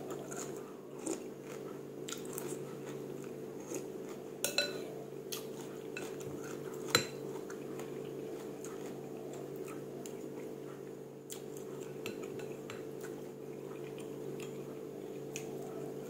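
A metal spoon and chopsticks clink and scrape against a soup bowl while someone eats noodle soup. The clicks are scattered and irregular, the sharpest about seven seconds in, over a steady low hum.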